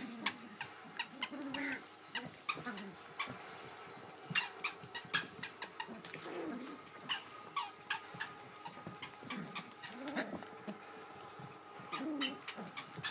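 Puppies play-fighting, giving short squeaky growls and yips every second or two, among scattered sharp clicks and knocks.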